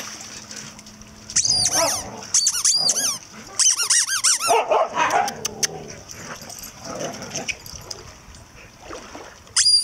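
Dogs giving short, repeated runs of high-pitched yelps and whines that waver up and down in pitch, in excited play.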